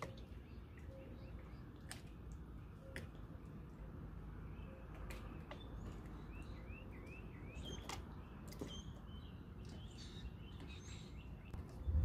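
Faint bird chirps over a low steady rumble, with a quick run of short rising chirps about six seconds in and scattered sharp clicks.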